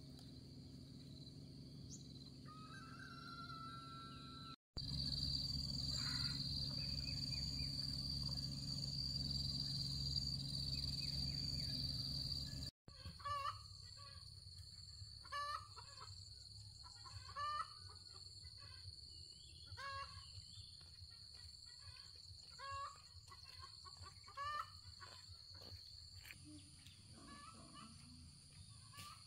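Chickens calling in short clucks, about one every two seconds, over a steady high insect whine. For several seconds in the first half, a louder stretch of low rumbling noise covers them and then cuts off suddenly.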